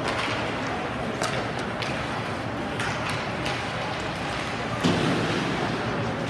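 Ice hockey rink sound during play: a steady hum of the arena and crowd with sharp clacks of sticks and puck scattered through, and a louder thump about five seconds in.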